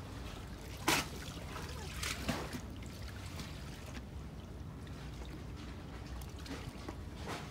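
Harbour water lapping and trickling against a pier, with one sharp splash about a second in as a sabiki rig's small bait feeder drops into the water, and a smaller one a little later, over a low steady rumble.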